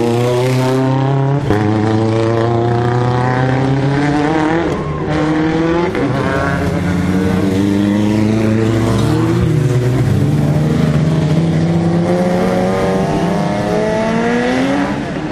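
Rally car engines revving hard as the cars accelerate along a wet street stage, the pitch climbing again and again and dropping briefly at each gear change.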